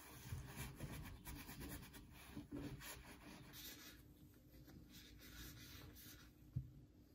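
Faint rubbing and rustling of a folded paper towel pressed and wiped by gloved hands on a wooden workbench, fading to quieter wiping about halfway through. A single soft knock near the end.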